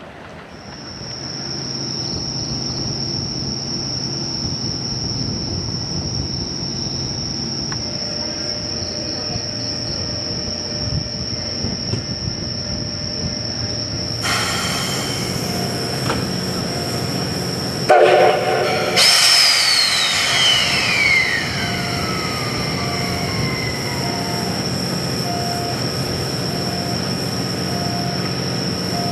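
D51 200, a 2-8-2 steam locomotive, running with its train, under a steady high-pitched whine. About two-thirds of the way through it gives a short, loud whistle blast, followed by a high tone that slowly falls in pitch.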